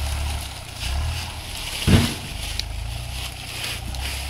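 Steady low hum of a diesel engine running, with one short loud sound about two seconds in.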